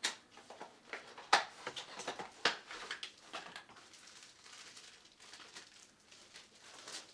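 A foil balloon and its plastic packet being handled and unwrapped: crinkling and rustling, with three sharp clicks in the first few seconds.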